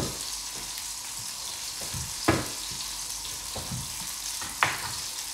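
Chef's knife cutting through raw peeled squash onto a wooden chopping board: a string of short knocks, the loudest about two seconds in and again near the end. A steady hiss runs underneath.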